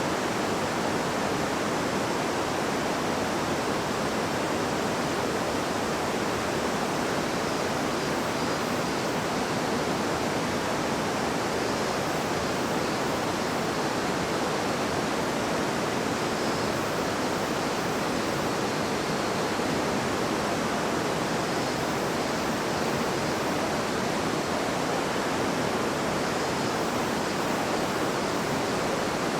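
River babbling steadily: an even, unbroken rush of flowing water.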